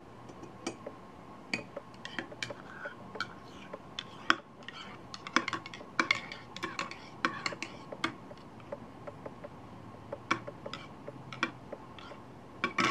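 Metal teaspoon stirring coffee in a ceramic mug, clinking against the sides of the cup many times at an irregular pace.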